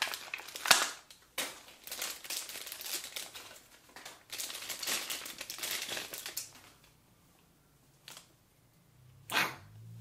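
Thin clear plastic bag crinkling as it is handled and pulled off a small plastic toy figure, in irregular rustles with a sharp click under a second in. It goes quiet after about six seconds, and there is one more short rustle near the end.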